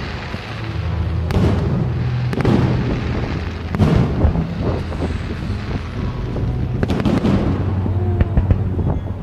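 Fireworks bursting: several booms at uneven intervals, then a run of crackling near the end, over steady background music.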